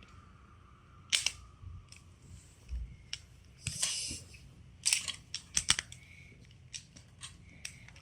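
Plastic magnetic building tiles clicking and clacking together as they are handled and snapped into place, in irregular sharp clicks, busiest around the middle.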